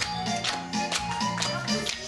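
Upbeat dance music with a quick, steady percussive beat under a melody, played for a children's dance.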